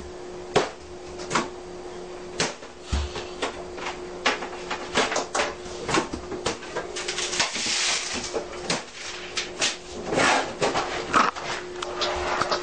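A rapid, irregular run of knocks and bangs as a boy pounds on and handles things at a kitchen counter, over a steady hum from a running microwave. The hum drops out for a couple of seconds past the middle, and the audio is sped up and high-pitched.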